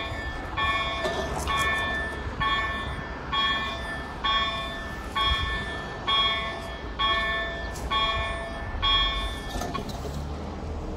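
Level-crossing warning bell ringing about once a second as the barriers come down, falling silent near the end once they are lowered.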